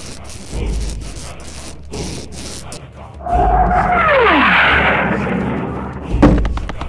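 Sound effect: a loud rushing noise comes in about three seconds in, carrying a held tone that then slides steeply down in pitch. Near the end comes a sharp knock followed by a quick run of clicks.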